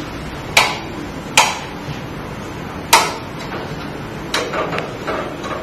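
A wall light switch being pressed several times, giving a handful of sharp clicks at uneven intervals; it switches the lights through the smart-home remote-control receiver.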